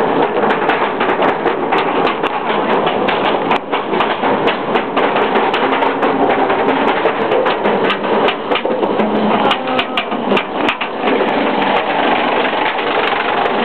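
Roller coaster train climbing the chain lift hill: a steady mechanical rattle with a fast, irregular run of clicks, several a second, from the lift chain and anti-rollback ratchet.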